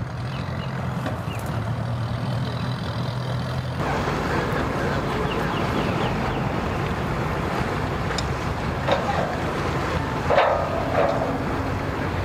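Boat engines idling at a launch ramp with a steady low hum. About four seconds in the sound changes to a jet ski's engine running with water churning as it noses up onto its trailer. A couple of short louder noises come near the end.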